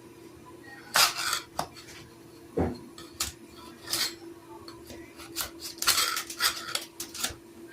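Scraper rasping peeling paint off a drywall ceiling in a series of short, uneven strokes, starting about a second in.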